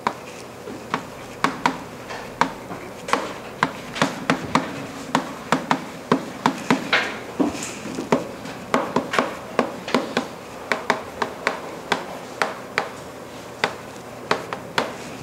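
Chalk writing on a classroom chalkboard: a quick, irregular run of sharp taps and short scratches, several a second, as each stroke of the letters is made.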